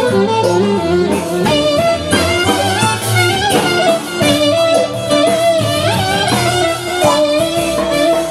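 Greek folk dance music in an instrumental passage: a stepping melody line over plucked-string accompaniment with a regular beat.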